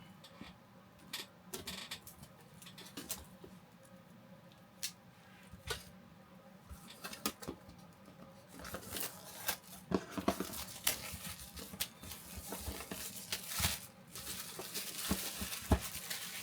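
A heavy cardboard product box being opened and its contents handled. Scattered clicks and taps come first, then from about halfway denser tearing, rustling and crinkling of the packaging, with sharp knocks.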